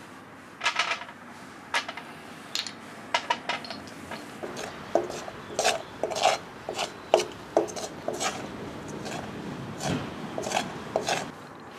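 Metal implement scraping and clinking against a pot of molten lead and dross, scraping out the last of the lead: an irregular string of short scrapes and taps.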